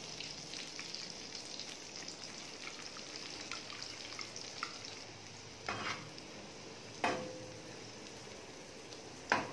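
Chopped onion frying in ghee and butter on a tawa: a steady sizzle with light crackling. Utensils knock and scrape on the tawa three times, the last near the end.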